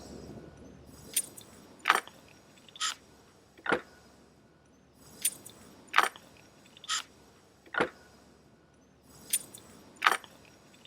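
Small metal and plastic clicks and clinks from handling wiring hardware while connecting the spliced cord into the plug: about ten sharp clicks, roughly one a second, with two short pauses.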